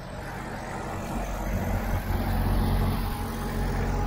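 An engine running steadily at idle: a low, even hum that grows louder about a second in.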